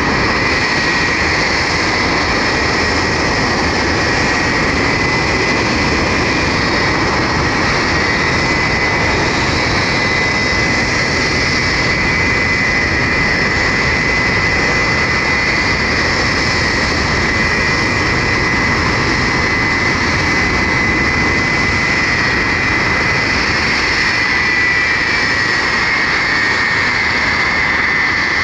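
Jet aircraft engines running loudly and steadily, a dense roar with a high whine on top. The whine rises slightly near the end.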